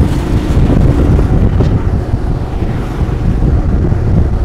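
Heavy wind buffeting the microphone of a moving motorcycle, a steady low rumble, with the bike's engine and road noise running underneath.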